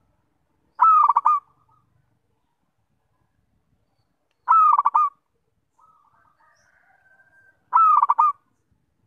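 Zebra dove (perkutut) cooing: three short phrases about three seconds apart, each a quick run of notes. A fainter, softer call sits between the second and third.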